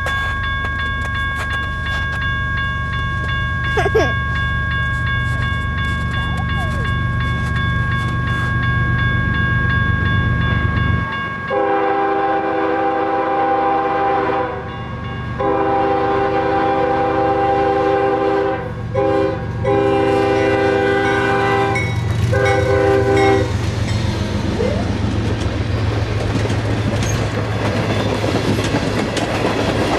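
Grade-crossing bell ringing while a CSX GE ES44DC diesel locomotive rumbles closer. About eleven seconds in, the locomotive's horn sounds the crossing signal: two long blasts, a short one and a long one. The train then passes close by, its tank-car wheels clattering over the rail joints.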